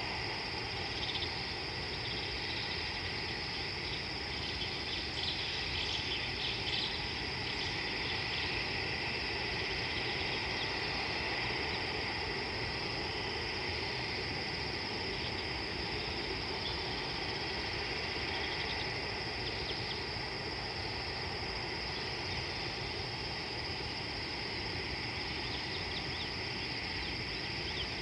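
Evening chorus of crickets and other insects: a steady, unbroken high trill, with a cluster of short chirps above it a few seconds in.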